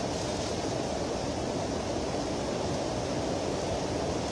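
Steady rushing of fast-flowing river water, an even noise heaviest in the low range, with no breaks or separate knocks.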